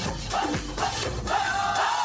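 Dance music for a stage routine: a steady drum beat, with a held melody line coming in about a second and a half in.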